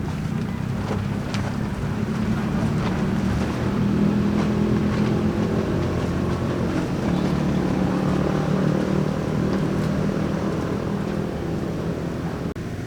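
A motor vehicle's engine running steadily, swelling to its loudest about four seconds in and then easing, with wind noise over it.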